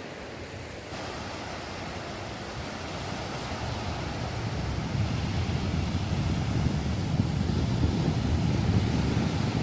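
Strong wind buffeting the microphone over a steady rushing wash, the gusts growing stronger about halfway through.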